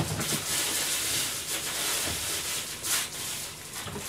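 Steady hiss of a pan of water with sliced onion heating on a gas stove burner, with a few faint brief taps.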